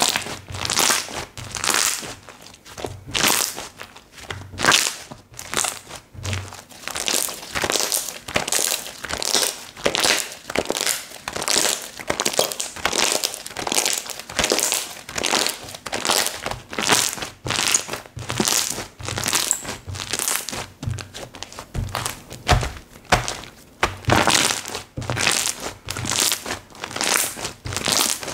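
Slime being squished, pressed and stretched by hand: wet crackling, crinkly squelches that repeat about once or twice a second.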